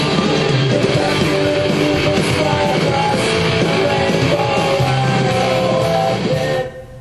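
Guitar music playing wirelessly from a phone over Bluetooth through a Blue Ant M1 portable stereo speaker; it cuts off about six and a half seconds in.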